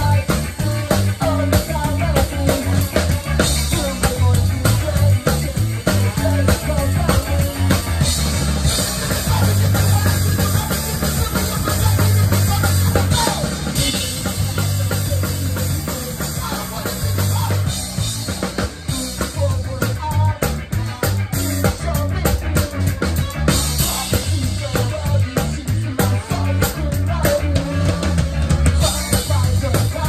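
Drum kit played live with a rock band, heard close up from a camera at the kit: drum hits and cymbals loud over the rest of the band, with a stretch of rapid hits about two-thirds of the way through.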